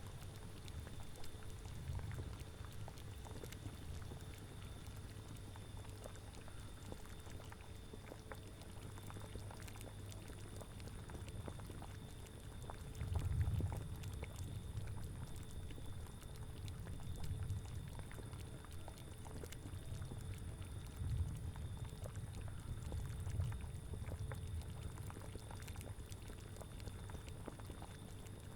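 A cauldron of liquid boiling, with low gurgling swells and many small bubble pops. The biggest swell comes about halfway through.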